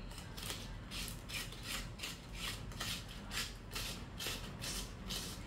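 A stainless steel mop handle being assembled by hand, giving a regular series of short rasping scrapes, about two a second.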